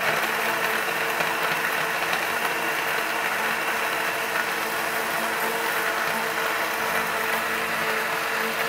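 Countertop blender switching on abruptly and running steadily at full speed, its motor humming under the churn of a watery nut-and-seed drink with ice in the jar.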